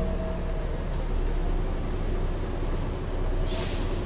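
Volvo Olympian double-decker bus's diesel engine running steadily at low speed, a low rumble heard from inside the bus. About three and a half seconds in, a short burst of compressed-air hiss from the bus's air system.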